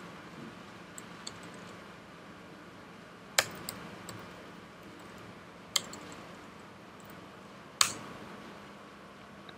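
Computer keyboard keystrokes: scattered single key presses with long gaps, three of them sharper and louder, over a faint steady hum.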